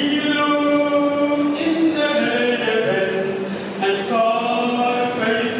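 A choir singing a cappella, unaccompanied voices holding long notes.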